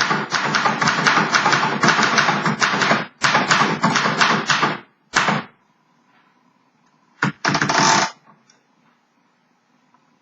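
1932 Remington Remie Scout manual typewriter being typed on at a fast, steady pace, type bars clacking several times a second for about five seconds with a short break partway. After a pause comes a sharp clack and a brief rattle of the machine's mechanism.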